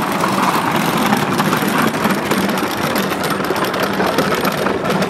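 An engine running steadily, a constant hum under a loud, even wash of outdoor noise.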